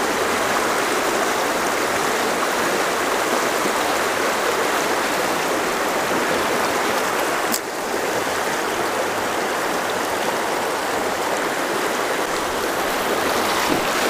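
Fast, shallow river rushing over rocks through a riffle: a steady, loud rush of water.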